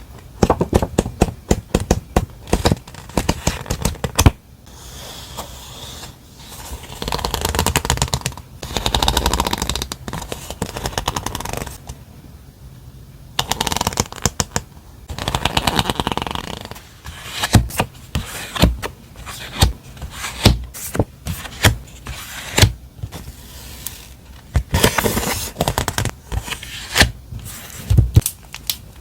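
Stationery and its plastic and paper packaging handled close to the microphone: rapid clicks and taps, broken by several stretches of crinkly rustling lasting a second or two.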